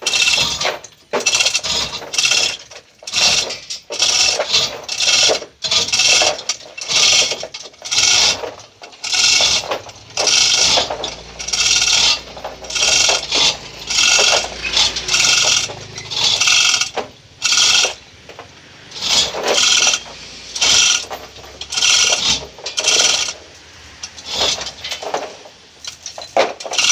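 A hand-worked metal ratchet mechanism clicking in short strokes, about one or two a second, over and over with brief pauses.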